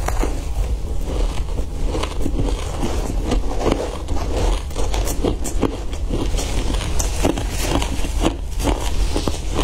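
Matcha-dusted shaved ice crunching and crackling as it is chewed, in many quick crackles, with a spoon scraping and scooping through the shaved ice in the bowl, over a steady low hum.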